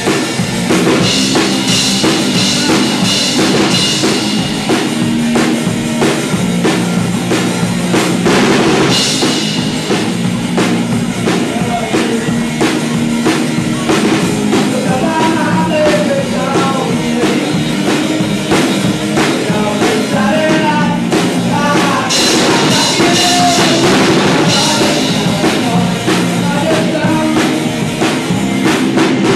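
Live rock band playing: a drum kit keeping a steady beat under electric guitars.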